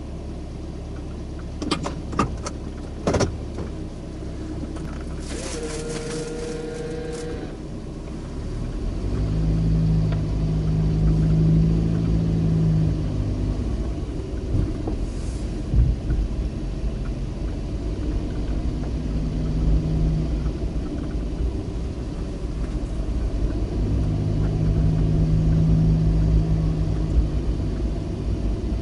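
Car engine and road rumble heard from inside the cabin as the car drives slowly, a steady low hum that grows louder about eight seconds in. A few sharp clicks come near the start, and a brief steady tone follows a few seconds later.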